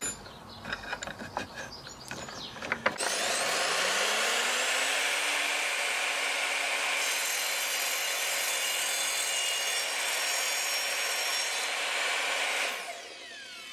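A few small clicks as the hold-down clamp is tightened on the board. About three seconds in, the Evolution R255SMS sliding mitre saw's motor spins up, and its multi-material blade cuts steadily through a wooden floorboard for about nine seconds. Near the end the motor is released and winds down with a falling whine.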